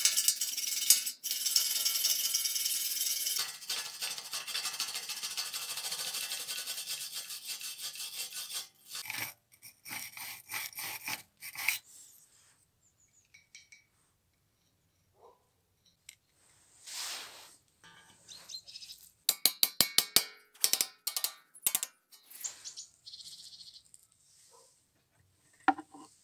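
Stiff hand wire brush scrubbing rust off a steel saw-handle holder clamped in a vise, a dense continuous scratching for the first several seconds. Later come shorter, separate scraping strokes of a flat file on the steel, with a quick run of strokes past the middle.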